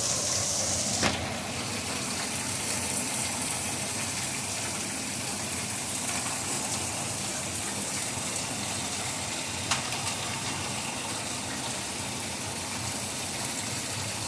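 Heavy rain with hail falling, a steady rushing hiss, with a sharp knock about a second in and another about ten seconds in.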